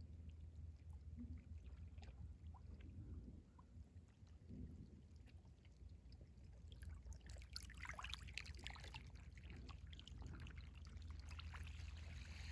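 Faint sound of the tide coming in: small waves lapping and trickling with scattered little clicks over a low rumble, and a louder wash of water about seven to ten seconds in.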